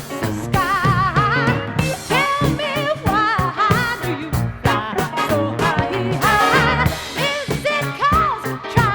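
A 1970s pop song recording playing, with a steady beat under a melody line sung or played with heavy vibrato.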